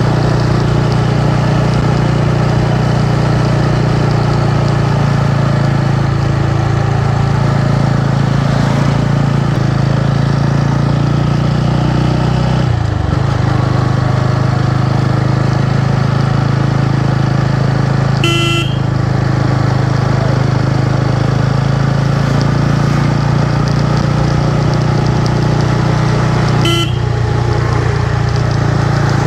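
TVS Ronin 225's single-cylinder engine running steadily while riding at road speed, its note dipping briefly about halfway through. A horn gives two short toots, one in the second half and one near the end.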